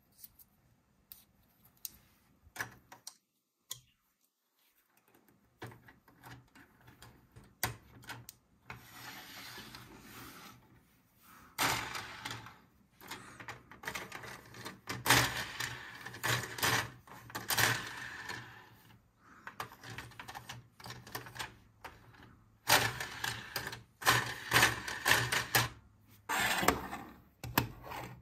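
Hard plastic LEGO pieces clicking and rattling as they are handled and fitted together. A few scattered clicks come at first, then dense runs of clatter from about twelve seconds in.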